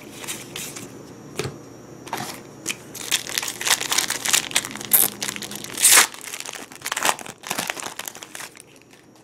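Foil Yu-Gi-Oh Magic Ruler booster pack crinkling and tearing as it is pulled open by hand: a quick run of sharp crackles, loudest about halfway through, that dies away shortly before the end.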